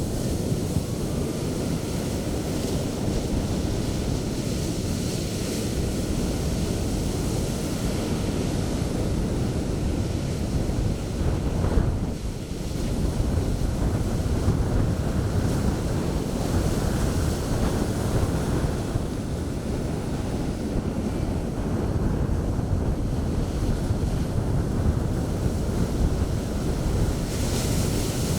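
Sea surf breaking and washing on the beach in a continuous churning rush, with wind buffeting the microphone.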